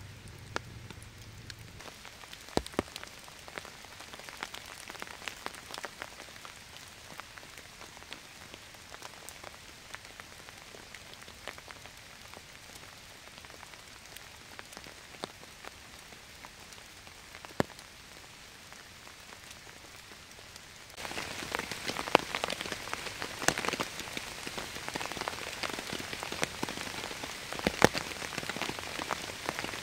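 Steady rain with many scattered sharp drip ticks. About two-thirds of the way through it turns louder and closer: rain falling on a tarp shelter roof.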